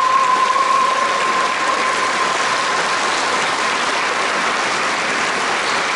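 Audience applauding, the clapping thickening into a steady wash as a dance piece ends, while a single held note of the music fades out about a second in.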